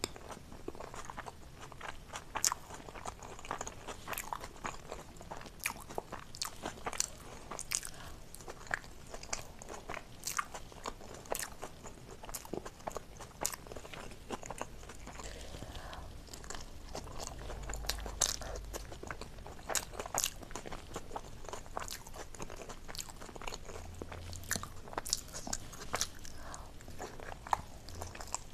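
Close-miked chewing and mouth sounds of a person eating chili momos, steamed dumplings coated in chili sauce: many short sharp smacks and clicks throughout.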